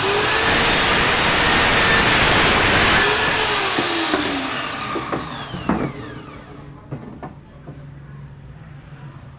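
Electric miter saw running at full speed as its blade cuts through melamine-faced board. The motor is then switched off and its whine falls away as the blade spins down over a few seconds. A few knocks follow, and a low steady hum carries on.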